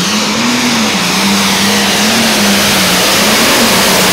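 A turbocharged International 1066 pulling tractor's engine runs at full throttle under the load of the sled. Its pitch wavers up and down a few times before settling steadier near the end.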